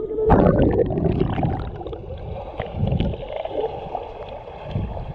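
Muffled underwater sound from a waterproof camera held below the surface of shallow water: sloshing and gurgling water with a few low thuds from the stirring, loudest in the first second.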